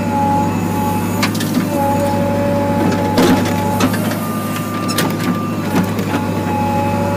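JCB 3DX backhoe loader's diesel engine running steadily, heard from inside the cab. A whine breaks off and returns several times as the hydraulics swing the backhoe arm, and there are a few metallic clunks, the loudest about three seconds in.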